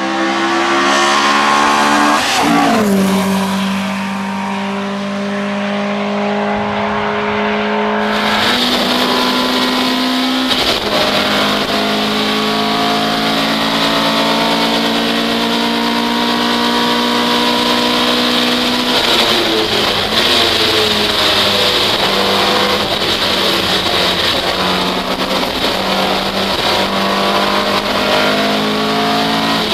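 Opel Kadett hillclimb race car's engine at high revs. First it is heard as the car approaches, with a sharp dip and recovery in pitch about two and a half seconds in. After about eight seconds it is heard from inside the cabin, pulling long runs through the gears, with the pitch dropping at shifts around ten and nineteen seconds in.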